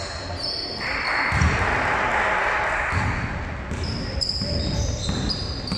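Basketball game on a court: the ball bouncing in low thuds, sneakers squeaking in short high squeaks, and a loud rush of noise lasting about two seconds from about a second in.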